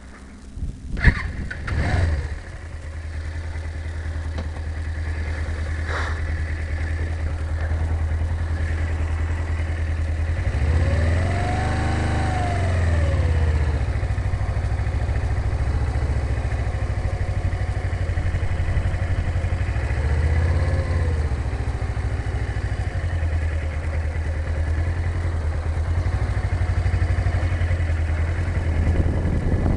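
Motorcycle engine running at low speed, heard from inside the rider's helmet, with a few sharp knocks near the start. The revs rise and fall twice, about eleven and twenty seconds in, as the bike is ridden slowly through tight figure-of-eight turns.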